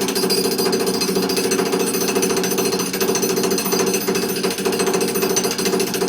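Jackhammer breaking up an old concrete sidewalk, hammering continuously at a rapid, steady rate.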